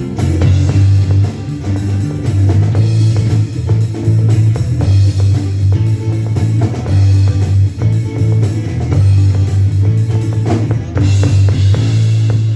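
Live rock band playing: drum kit with bass drum, guitar and a strong, steady bass line.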